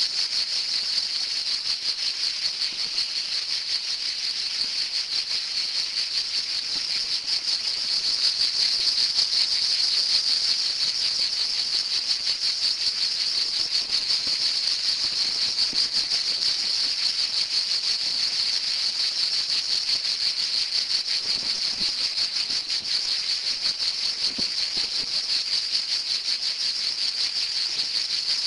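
Insects buzzing in a steady, high-pitched, continuous chorus.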